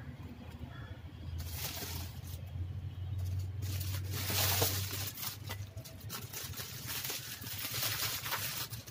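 Bubble wrap and clear plastic wrapping crinkling and rustling as it is handled, in three longer bursts, with a few light knocks of objects being moved and set down. A steady low hum runs underneath.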